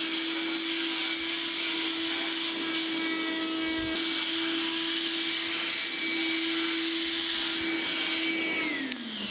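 Portable DeWalt wet/dry shop vacuum running steadily, with a motor whine and airy rush as its hose nozzle sucks debris out of the planer's ways. Near the end the whine falls in pitch as the motor spins down.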